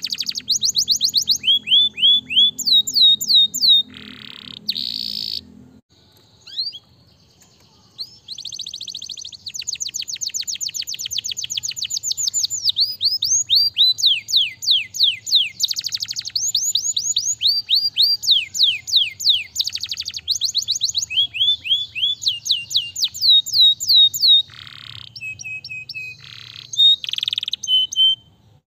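Domestic canary singing a long, varied song: runs of quickly repeated falling whistled notes, some as fast as about ten a second, changing from one phrase to the next, with a short break about five seconds in.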